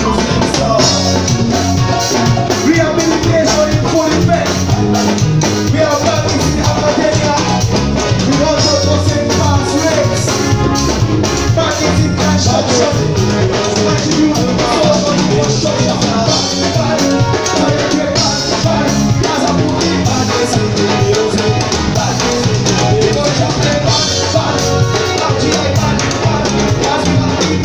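Live band music amplified through PA speakers: a drum kit with cymbals keeping a steady beat under a man singing into a handheld microphone.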